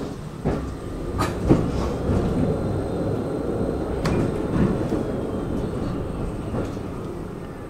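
Tram running on its rails, heard from on board: a steady rumble broken by several sharp knocks from the wheels on the track, loudest in the first half and easing off toward the end.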